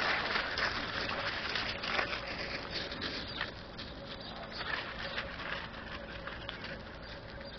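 Gravel crunching and shifting underfoot, with scattered sharp clicks. It is strongest in the first couple of seconds, then fades to a fainter crackle.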